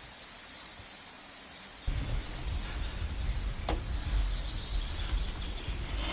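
Quiet outdoor ambience, then about two seconds in a low rumbling of movement close to the microphone inside a hunting blind as a hunter steadies a scoped muzzleloader, with one sharp click partway through. A bird chirps briefly twice.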